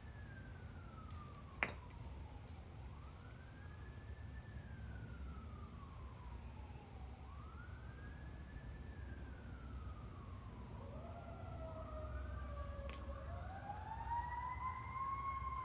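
Faint emergency-vehicle siren wailing, its pitch rising and slowly falling every few seconds, joined by a second siren overlapping it in the second half. A single sharp click sounds about one and a half seconds in.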